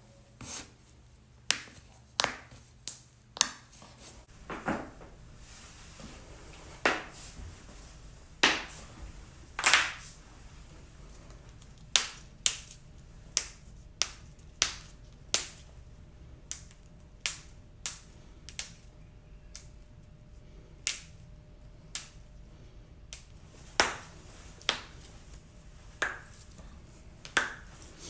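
Human joints cracking and popping, one after another in a long irregular series of sharp cracks, about one a second, some much louder than others and a few with a short tail.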